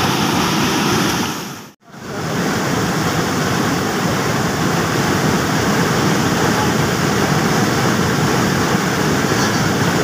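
Foaming whitewater of a small waterfall rushing over rocks, a loud steady roar. It cuts out briefly about two seconds in and comes straight back.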